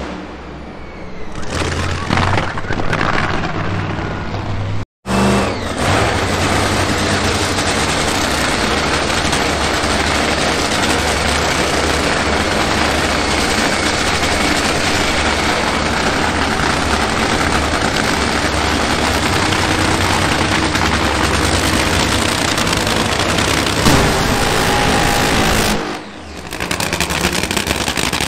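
Supercharged nitromethane-burning V8 drag racing engine running loud and steady for long stretches, with a fast popping crackle. The sound breaks off abruptly for a moment about five seconds in and dips briefly near the end.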